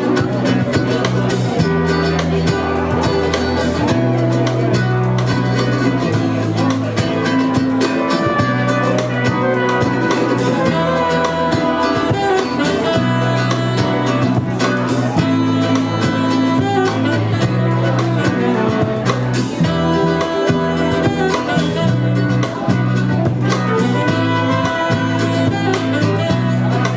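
Live band playing music, with a bass line moving between long held notes every couple of seconds under drums and cymbal hits.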